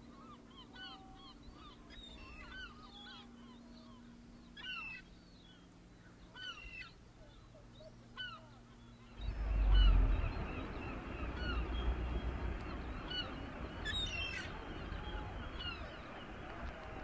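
Gulls calling repeatedly, short arched cries over the harbour. About halfway through, a loud low rushing noise comes in and stays, covering the calls.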